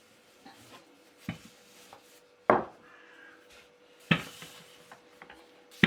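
Sharp knocks of kitchen utensils on a work surface while dough is worked: four knocks a second or more apart, the second one the loudest.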